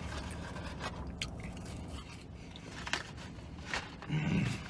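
Paper fry carton rustling and crinkling as fries are picked out and eaten, with a few light clicks and scrapes. A louder rustle near the end as a cardboard sandwich box is picked up.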